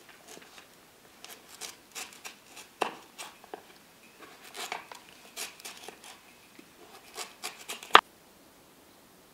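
Knife slicing through a raw carrot on a wooden plate: an uneven run of crisp crunching cuts and light knocks of the blade on the wood, ending with one sharp knock about eight seconds in.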